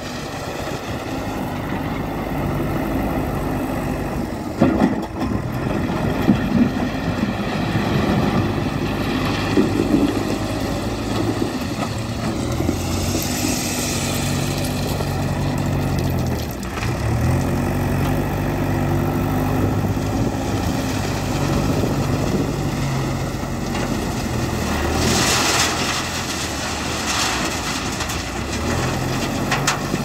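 JCB 3DX backhoe loader's diesel engine working under load, its pitch rising and falling as the front bucket scoops and lifts crushed stone. Twice, about a third of the way in and again near the end, a hissing rattle of stone pouring into the steel tipper body.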